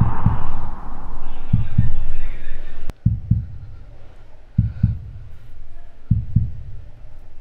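Slow heartbeat sound effect on a film soundtrack: deep double thumps, lub-dub, five times at about 1.5 s intervals. A rushing hiss sounds over the first beats and cuts off sharply about three seconds in.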